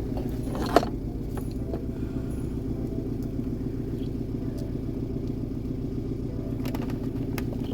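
Car engine idling steadily, heard from inside the car, with a sharp click about a second in.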